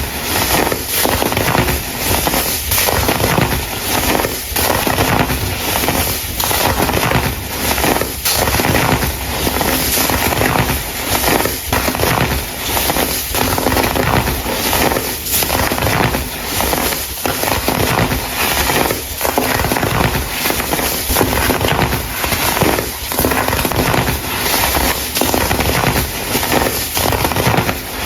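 Hardened baking soda crumble being crushed, a dense, continuous crunching and crackling with many small dips.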